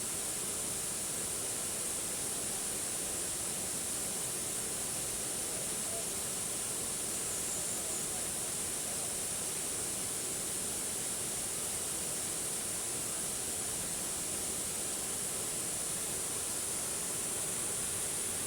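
Waterfall: a steady, even rush of falling water, with a bright hiss above the rest.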